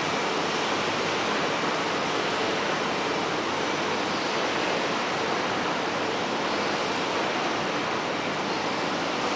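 Steady, even rushing noise of machinery running in a large factory hall, with no distinct strokes or rhythm.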